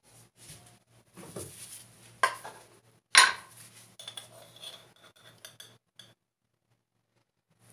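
Metal spoon clinking and knocking against a mixing bowl, a scatter of light clicks with two sharper knocks, the louder about three seconds in.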